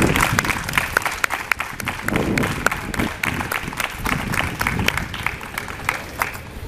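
Scattered hand clapping from a small audience, separate claps at an uneven rate, thinning toward the end.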